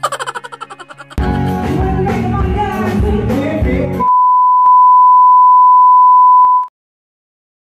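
A song plays, opening with a brief rapid stutter. It gives way to a steady single-pitch test-tone beep, the reference tone that goes with TV colour bars. The beep holds for about two and a half seconds and then cuts off.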